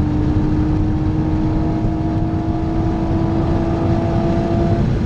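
BMW Z4 3.0i's M54 straight-six running hard under load, its steady note climbing slowly as the car gains speed, heard from inside the cabin over heavy road and wind noise. The engine note drops away shortly before the end.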